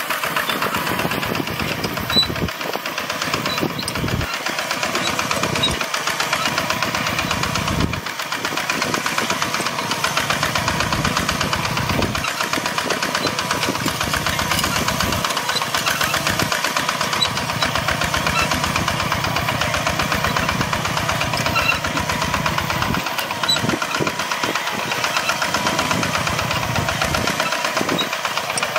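An old tractor's engine running steadily while plowing, a continuous fast pulsing with no change in speed.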